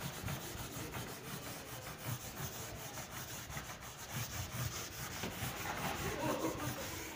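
Handheld whiteboard duster wiping marker off a whiteboard, a continuous scrubbing made of many quick back-and-forth strokes.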